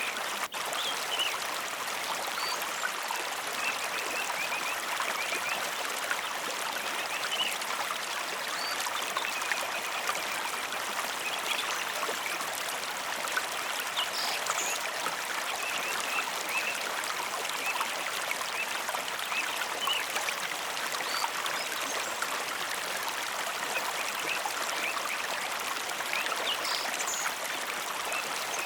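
Mountain river running over rocks: a steady, even rush of flowing water.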